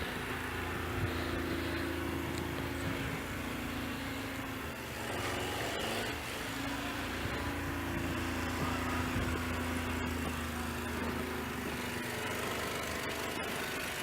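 A motor engine running steadily, its tone breaking off briefly about five seconds in and then picking up again.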